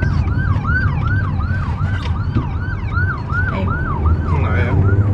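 Siren in a rapid yelp, its pitch sweeping up and down about three times a second and fading near the end. It is heard from inside a moving car over steady low road rumble.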